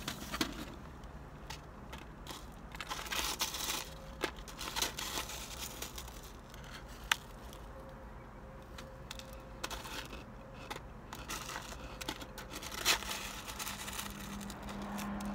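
Close-up eating sounds: crunching and chewing of fried takeout food, with irregular rustles and clicks from handling the cardboard takeout box.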